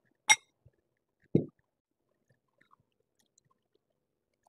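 Tableware during a meal: a spoon strikes a metal bowl with a sharp, briefly ringing clink, and about a second later there is a short dull knock. A few faint small clicks follow.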